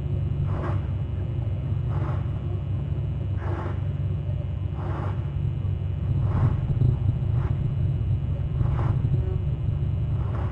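Steady low rumble on an outdoor wildlife-camera microphone. Over it, a faint short sound repeats about every second and a half.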